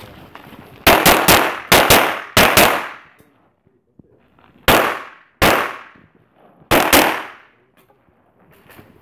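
Glock pistol shots in an IPSC stage, each with a short echoing tail. A fast string of shots comes in the first three seconds, then four more spaced out about a second apart, the last two close together.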